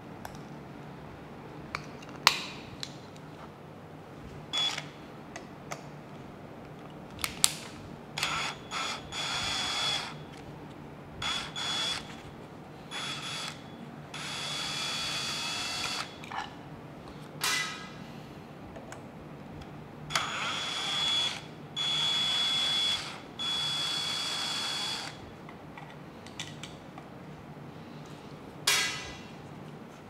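Cordless drill-driver running in about eight short runs of a second or two each, backing the screws out of a wall light switch. Between the runs and near the start and end, a few sharp clicks and knocks come from the switch plate being handled.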